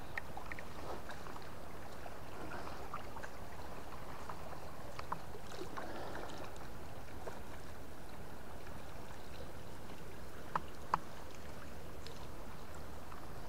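River water running steadily, an even rushing and gurgling of the current. Two light clicks sound near the end.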